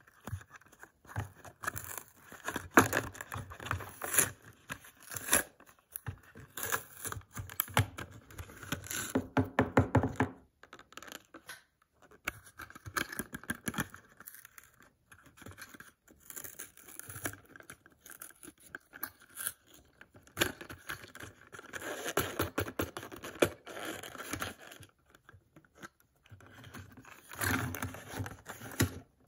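Cardboard backing of a Hot Wheels blister pack being torn and peeled away from its plastic blister, with crackling and crinkling of the plastic, in irregular bursts with short pauses between.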